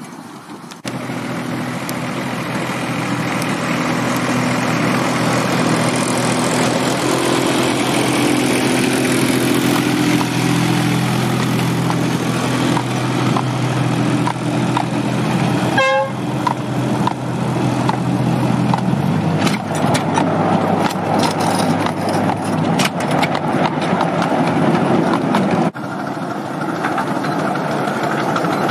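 Ride-on miniature railway trains running along the track. First comes a steady engine drone as a rake of wagons passes, then a run of sharp irregular clicks from wheels on the rails, and near the end a small steam locomotive drawing in.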